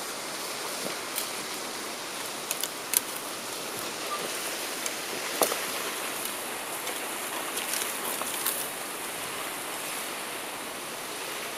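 Steady rushing of a nearby waterfall, with a handful of sharp cracks and clatters as dry branches are gathered and snapped for firewood.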